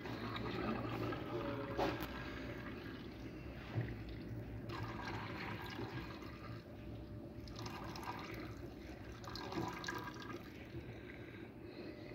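Used engine oil pouring from the sump of a Renault Kangoo 1.5 dCi into a waste-oil drain funnel: a continuous splashing of liquid that swells now and then. Two sharp clicks sound in the first four seconds.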